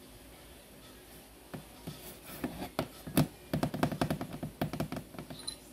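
Irregular taps, knocks and scratches on a cardboard cat-food box, starting about a second and a half in and busiest in the middle, with a brief high jingle near the end.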